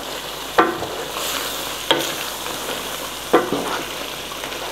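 Thick beef curry sizzling and frying on high heat in a large metal pot as a wooden spoon stirs it, the spoon knocking and scraping against the pot three times. This is the bhuna stage, the meat and masala being browned.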